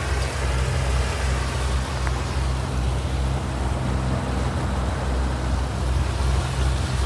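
Boat motor running steadily, a constant low hum with a broad hiss over it.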